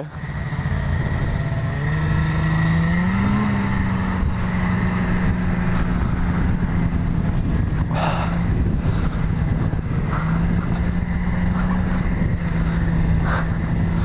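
Snowmobile engine running under load as it tows a sled through deep snow, heard from the sled behind it; its pitch climbs a few seconds in, then holds steady over a constant rushing noise.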